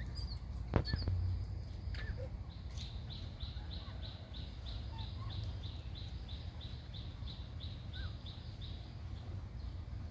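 A short high chirp repeated about three times a second for several seconds, with a few faint short squeaks and a click near the start, over a steady low rumble.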